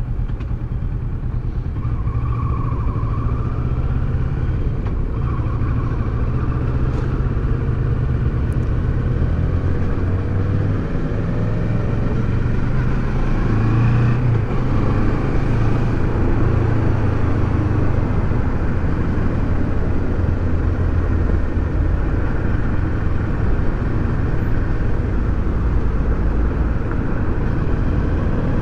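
Kawasaki Versys 650's parallel-twin engine running as the bike rides along, heard from on board with road and wind noise. The engine note rises and falls several times.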